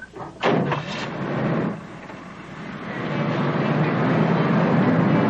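A sharp knock about half a second in, then a car engine running, growing louder from about two seconds in and then holding steady.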